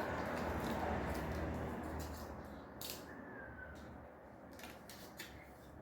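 Handling noise of ring light parts and packaging: rustling, a few light clicks, and a short squeak about three seconds in.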